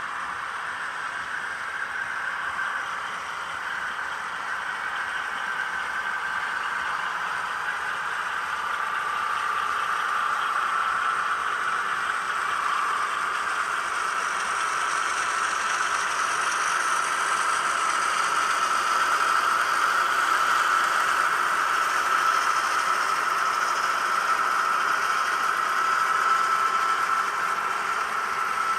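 S scale model trains running, a steady motor whir with wheels rattling on the track. It grows louder as the locomotives and freight cars come past close by.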